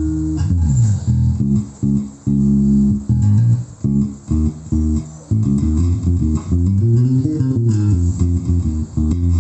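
Thomson JB 101 jazz-style electric bass playing a bass line of separate plucked notes with short gaps between them, with a few sliding notes along the way.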